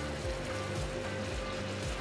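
Background music with a steady low pulse and one held note.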